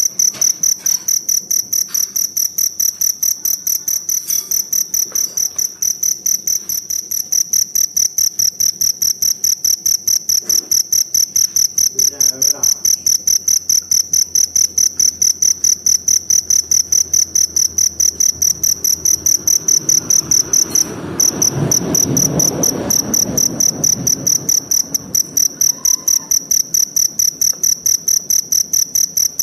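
Forest cricket chirping continuously: a shrill, high-pitched trill pulsing evenly at about three to four chirps a second, breaking off for a moment about two-thirds of the way through. A low rush of background noise swells and fades behind it in the second half.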